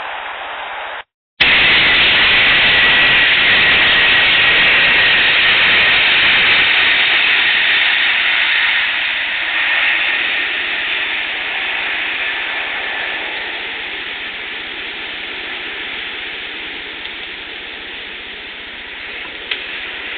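A low-flying plane passing over, heard as a loud, even rushing noise that slowly fades, with a faint steady whine in the first few seconds. The sound cuts out briefly about a second in, and a small click comes near the end.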